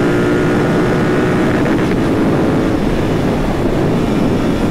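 Royal Enfield Continental GT 650's 648 cc parallel-twin engine running steadily under way, heard from the rider's position with a continuous rush of road and air noise.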